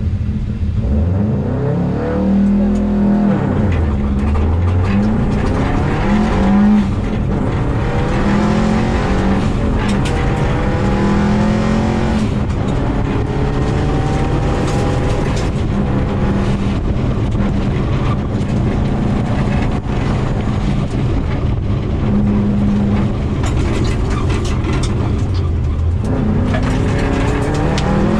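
A 2000 Subaru WRX's turbocharged flat-four engine revving hard from inside the cabin, its pitch climbing and dropping again and again with the gear changes. Gravel rattles steadily under the car, with scattered stone strikes.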